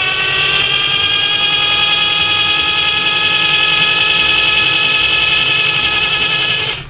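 Battery-powered toy hand mixer's small motor whirring as its beaters spin in cookie dough. The pitch rises briefly as it spins up, holds steady, then cuts off just before the end.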